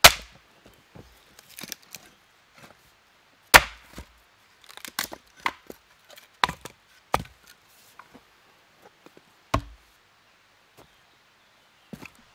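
Rinaldi Calabria 700 g axe splitting a log on a chopping block: sharp blows into the wood, the loudest at the start and about three and a half seconds in, with a run of lighter knocks and clatter of split pieces in between. Near the end a last blow sinks the axe into the chopping block.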